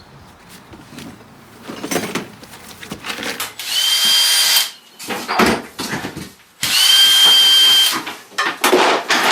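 Power drill run in two bursts of about a second each, a steady high whine over a loud buzz, with knocks and clatter of handled parts between them.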